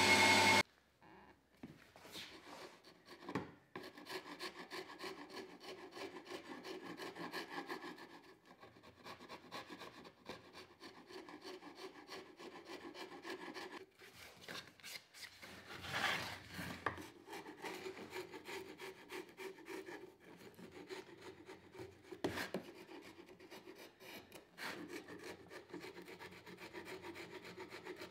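A planer-thicknesser is running for a moment and then cuts off abruptly. After that, a small hand tool scrapes and rubs along the bark edge of a live-edge spalted beech board in repeated strokes, with a louder stroke about halfway through.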